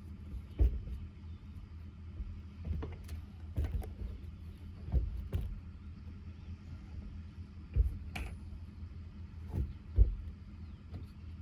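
Irregular knocks and clatters, about ten in all, from hands-on work, over a steady low hum.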